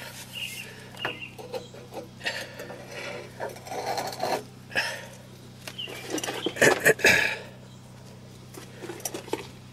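Irregular metal clinks and clatter from a breaker bar with a flexible head and a socket working the strap-tensioning bolt on a mobile-home earth anchor head, turned in half turns to tighten the strap. The loudest clatter comes about two-thirds of the way through.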